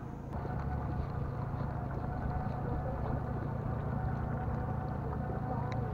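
Boat motor running with a steady low hum and a faint, steady higher whine.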